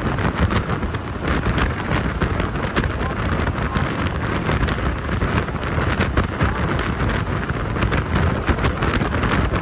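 Haryana Roadways bus running at speed: a steady rumble of engine and road noise with wind buffeting the microphone and frequent short rattles.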